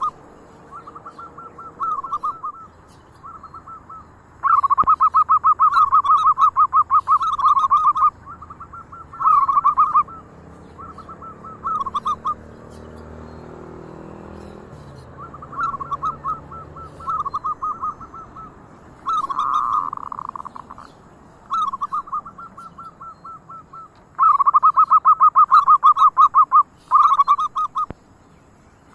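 Zebra doves (perkutut) cooing in phrases of rapid pulsed notes, again and again. The longest and loudest phrases come about five seconds in and again near the end, with shorter, quieter phrases between them.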